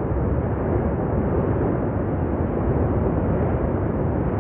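The La Palma volcano erupting gives a steady, deep, noisy rumble with no distinct bangs.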